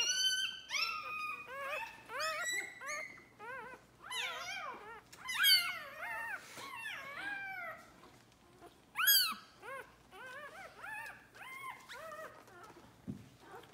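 Day-old puppy crying and squealing as it is handled: a rapid string of short, high-pitched, arching cries, loudest about five and a half and nine seconds in.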